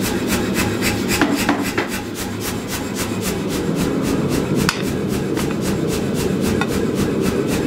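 Say-Mak self-contained air power hammer running idle, its built-in compressor keeping up a steady rhythmic chuffing of about five beats a second over a constant hum. A few sharp metallic clinks come about a second in and again near five seconds in.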